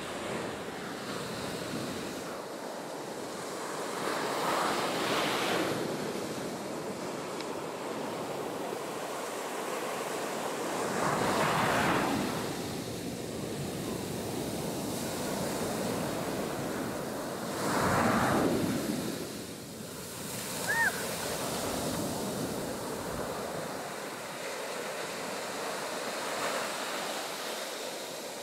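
Ocean surf breaking and washing up the beach, as a steady rush that swells loudly three times as waves come in.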